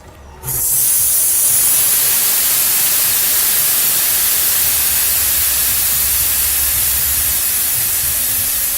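Air hissing out of a bicycle tyre as it is let down until flat. The loud, steady hiss starts suddenly about half a second in.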